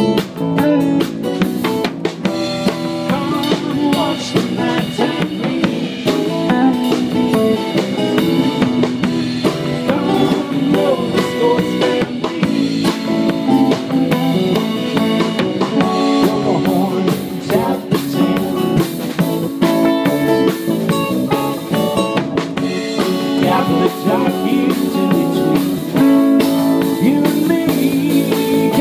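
Live band playing: acoustic guitar, electric guitar, bass guitar and drum kit, with a steady beat.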